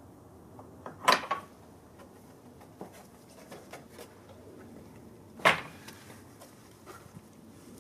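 Two sharp knocks, about a second in and again about four seconds later, with lighter taps and scuffs between: a person climbing over a wooden garden gate and moving about on patio paving.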